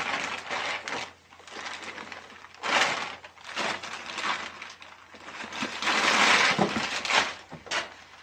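Plastic packaging crinkling and rustling in several bursts as a backpack is handled and pulled out of its clear plastic wrap.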